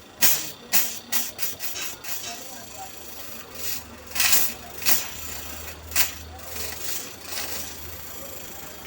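Sharp rubbing and scraping handling noises, a quick string of them at first and a few more later, over the low hum of an inverter fridge compressor running.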